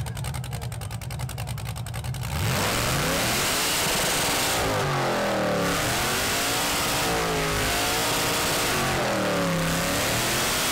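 Cammed LS V8 in a Chevy S-10 burnout truck with a choppy, pulsing idle. About two seconds in it is revved hard into a burnout and held at high revs, the pitch swelling and dipping every couple of seconds as the rear tyres spin and smoke.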